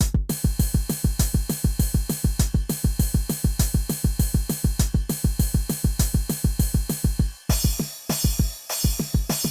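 EGDR909 drum machine app, an emulation of the Roland TR-909, playing a programmed beat of kick drum, snare and hi-hats that starts abruptly after silence. About seven and a half seconds in, the pattern changes: the kick thins out and a bright, hissing cymbal layer comes in.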